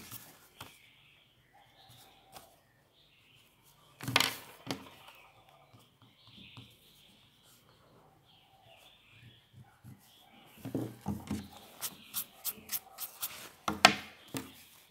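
Rubber eraser scrubbing pencil lines off paper, with a short burst of strokes about four seconds in and a run of quick back-and-forth strokes near the end.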